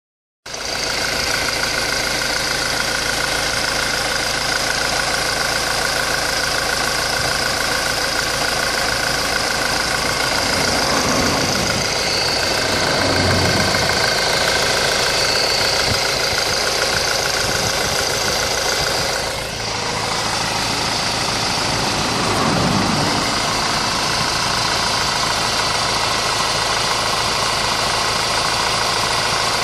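2004 Honda 2.2 engine running at idle with a steady high-pitched whine over the engine note. The whine appeared after the timing chain was replaced. A little past the middle the sound briefly dips and changes.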